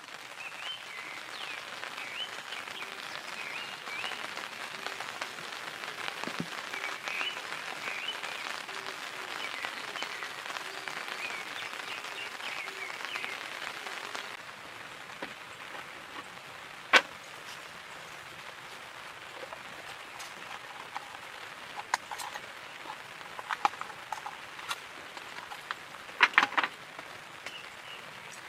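Steady rain, easing about halfway through, with single heavy drops knocking sharply now and then; a quick cluster of knocks near the end is the loudest.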